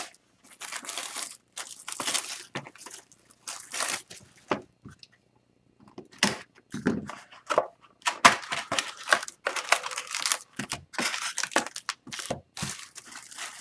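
Plastic wrapping on a sealed trading-card box being slit with a box cutter and torn off in a string of short crinkling rips, then the cardboard box opened and the card packs taken out with rustling.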